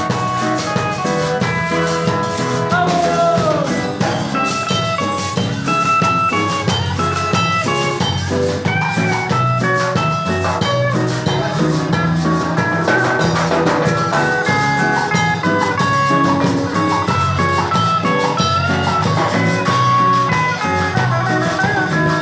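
A live cumbia-reggae band playing: an electric guitar takes a lead line of held and bent notes over a drum kit and a steady low groove.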